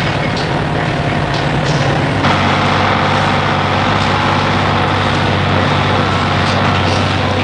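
City bus engine running while the bus drives, heard from inside near the driver's seat; its note shifts about two seconds in.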